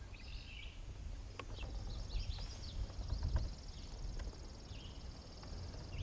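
Songbirds singing, with short chirping phrases over and over, and a steady high buzzing trill that runs through most of it, over a low outdoor rumble.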